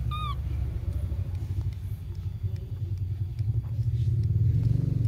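Steady low motor rumble with a fine, rapid pulsing. A single short, high chirp sounds right at the start.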